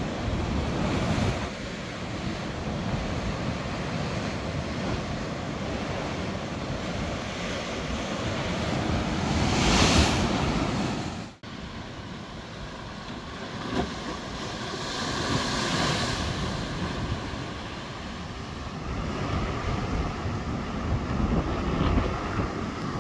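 Rough storm sea: heavy surf breaking and washing against rocks and a concrete sea wall, as a continuous roar that swells with each wave and peaks about ten seconds in, with wind buffeting the microphone. The sound drops out for an instant about eleven seconds in, then the surf carries on.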